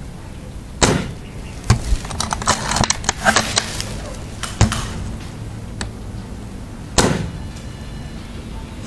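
Airsoft gunfire: two sharp single shots, one just under a second in and one about seven seconds in, each with a short echo. Between them comes a quick, irregular run of cracks, clicks and knocks from about two to four seconds in.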